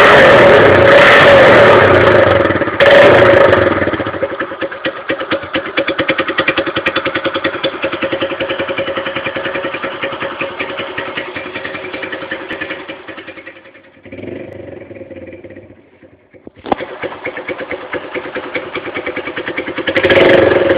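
Honda Fan 125 single-cylinder four-stroke engine through an aluminium 'boca 8' sport exhaust: revved loud, then dropping to a steady idle of distinct exhaust pulses. The idle sinks low for a couple of seconds before a sharp click, picks up again, and the engine is revved hard once more near the end.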